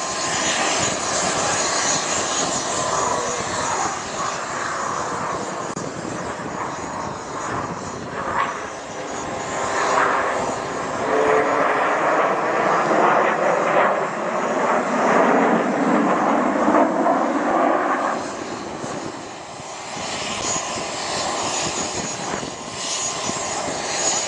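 Blue Angels F/A-18 Hornet jets flying over in formation, their twin turbofan engines producing a loud roar. The roar swells to its loudest in the middle, and its pitch falls as the jets pass. It eases briefly, then builds again near the end as another pair comes through.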